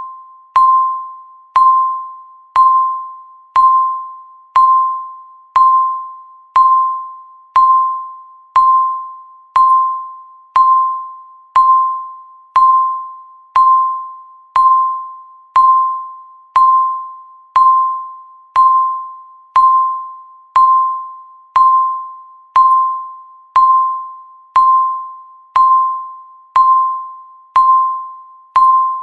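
Countdown timer beep: a short tone of about 1 kHz with a sharp attack that fades quickly, repeated once every second to mark each passing second.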